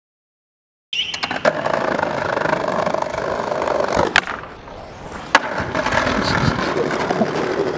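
Skateboard wheels rolling on concrete, starting about a second in. About three seconds in comes a sharp crack, then about a second of quieter sound while the board is off the ground, then a hard clack as it lands and rolls on.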